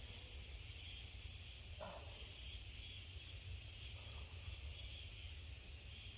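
Faint steady high insect chorus with a slow, gently pulsing shimmer, over a low rumble of wind or handling. A soft scrape is heard about two seconds in, and a fainter one near four seconds.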